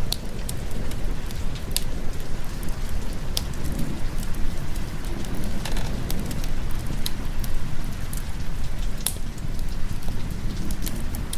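Steady heavy rain with a low, even rumble beneath it, mixed with the scattered sharp pops of a fireplace crackling.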